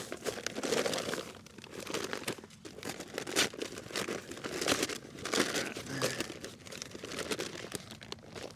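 Irregular crinkling and rustling of a bag or wrapping being handled, with scattered crackles.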